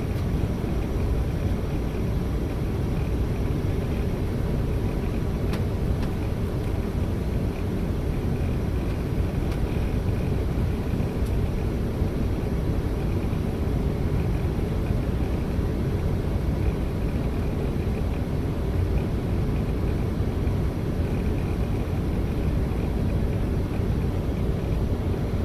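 Steady cabin noise of an Embraer ERJ-140 regional jet on final approach: a low, even rumble of its rear-mounted turbofan engines and airflow, heard from inside the cabin.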